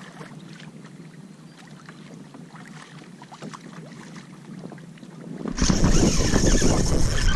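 Small waves lapping and splashing faintly against a plastic kayak hull. About five and a half seconds in the sound jumps abruptly to loud wind buffeting the microphone over splashing water.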